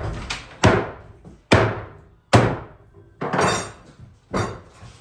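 Hammer blows in demolition work: about five sharp strikes roughly a second apart, each ringing out briefly.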